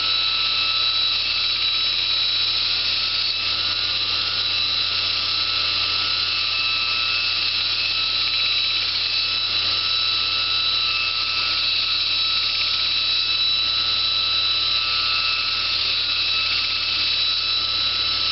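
Belt grinder running steadily while sharpening a sword blade: a high whine over an even hiss.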